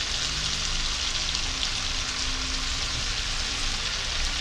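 Chopped vegetables sautéing in oil in a wok: a steady sizzle.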